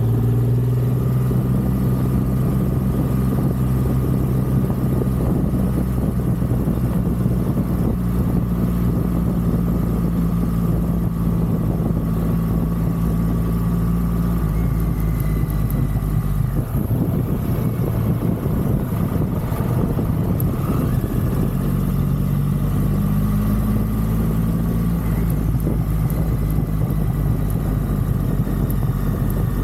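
Triumph Rocket 3's big inline three-cylinder engine running steadily on the ride, its pitch shifting for a few seconds a little past the middle before settling again.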